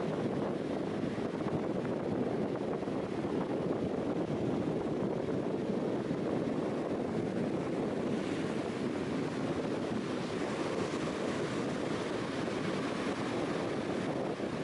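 Steady wind noise on the microphone with ocean surf washing, getting a little brighter about eight seconds in.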